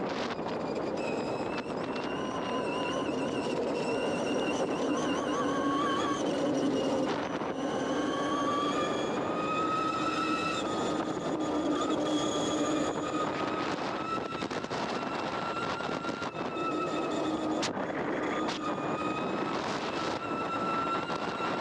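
Electric ATV with a 72 V battery and a QS5000 motor, running under way with a wavering electric-motor whine over a steady rush of wind and tyre noise. The whine climbs in pitch about eight to eleven seconds in as it speeds up, then holds.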